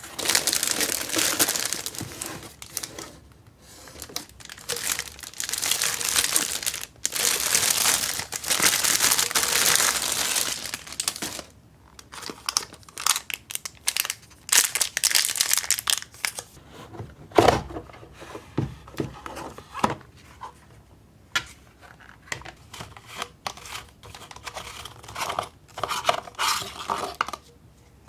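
Plastic wrapping crinkling and tearing as a wrapped plastic ice-bottle mold is unpacked from a cardboard box. About halfway through this gives way to scattered clicks and knocks of the hard plastic mold parts being handled and pulled apart.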